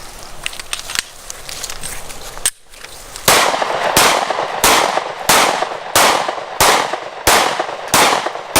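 Suppressed pistol firing a rapid, evenly paced string of about eight shots, roughly one and a half per second, starting about three seconds in.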